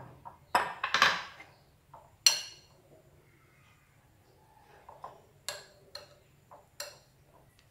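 Raw chicken pieces being moved around in buttermilk in a glass bowl. A short, loud wet rush comes about a second in, then a few separate sharp clinks and taps against the glass.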